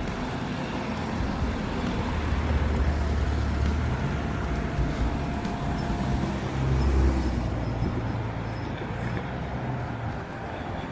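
Street traffic: a motor vehicle's engine rumbling close by over steady road noise, swelling louder twice.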